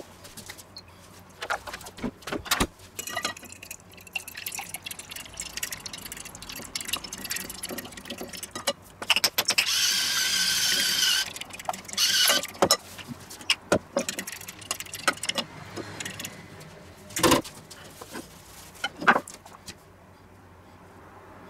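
Fork beating an egg in a ceramic plate: a loud burst of rapid scraping and clinking about ten seconds in, among scattered taps and clicks of plates, jars and utensils on the counter.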